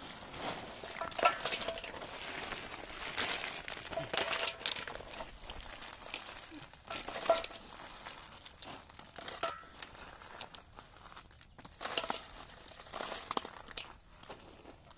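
Woven plastic sacks crinkling and rustling as live freshwater snails are handled, with the snail shells clicking against one another and a few short ringing clinks against a metal basin.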